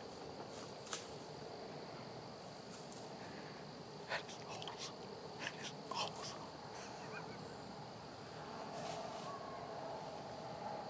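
Quiet woods ambience: a steady faint high-pitched hum with a few soft clicks scattered through it.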